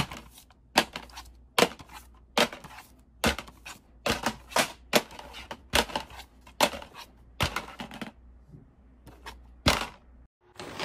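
Plastic DVD cases clacking as a hand flips them over one after another on a wooden surface: a sharp clack a little more than once a second.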